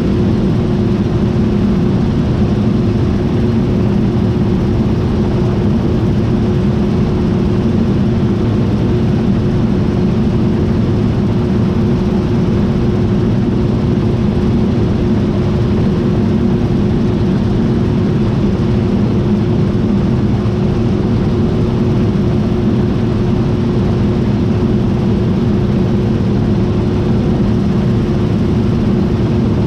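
John Deere T660i combine harvester running steadily: a constant machine drone with a steady hum held throughout and no change in speed.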